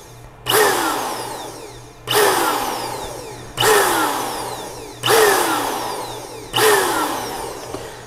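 Handheld electric air duster blowing in five short blasts, about one every one and a half seconds, each starting abruptly and tailing off. It is blowing debris out from under a sticking MacBook Pro butterfly keycap.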